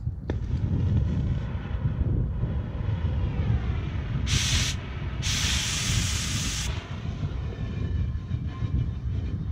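Oxy-fuel cutting torch running on steel pipe with a steady rushing flame noise, broken around the middle by two sudden bursts of louder hiss, the second about a second and a half long.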